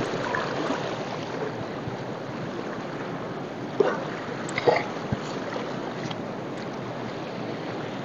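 Shallow river rushing over stones in a steady wash, with two brief sharper sounds about four seconds in.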